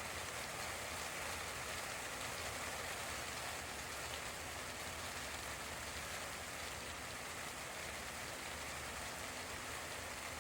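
Steady, even rain-like hiss that holds at one level throughout, with no separate drops or knocks standing out.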